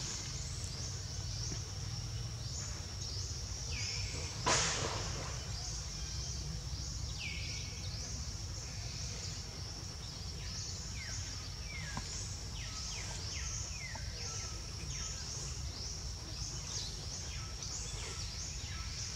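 Forest ambience: a steady high-pitched insect drone with many short falling chirps over a low rumble, and one louder, sharper sound about four and a half seconds in.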